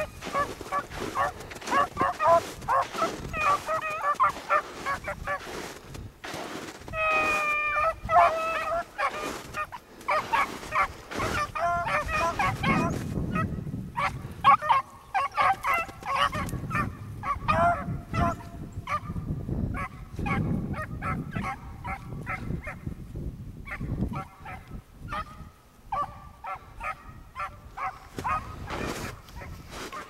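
A pack of beagles baying on a rabbit's trail: many overlapping bawling calls, one after another, throughout.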